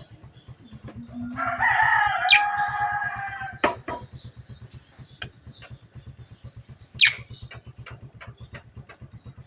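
Javan myna calling: one harsh, drawn-out call of about two seconds with a sharp falling whistle inside it, followed by a few clicks and another short, sharp whistle about seven seconds in.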